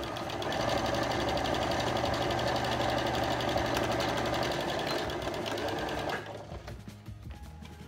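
Electric domestic sewing machine stitching a seam through cotton fabric, running at a steady fast speed with rapid, even needle strokes. It starts just after the beginning and stops about six seconds in.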